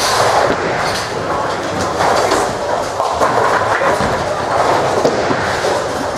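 Tenpin bowling alley din: bowling balls rolling down the lanes in a steady rumble, with sharp clatters of pins being struck.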